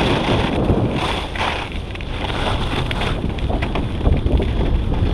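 Wind buffeting an action camera's microphone at high skiing speed, with skis hissing and scraping over hard-packed snow. The noise surges unevenly with the turns.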